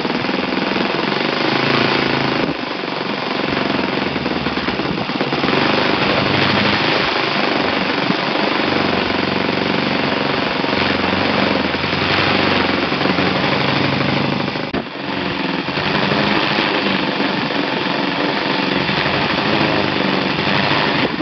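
OS FS-61 four-stroke glow model engine running fast on a test bench, with a loud, rapid exhaust beat. The sound dips briefly about two and a half seconds in and again near fifteen seconds.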